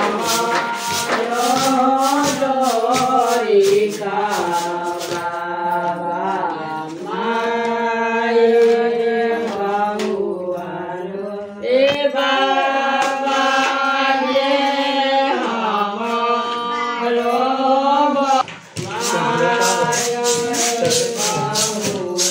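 Group of women singing a devotional folk song to the goddess (devi geet) together in long held notes. A dry rattling sounds under the singing near the start and again near the end.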